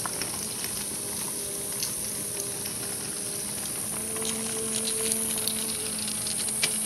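A small pulled wagon rolling over pavement, its wheels and frame giving scattered clicks and rattles. Under it runs a steady high-pitched hiss and a faint low hum that grows a little stronger about four seconds in.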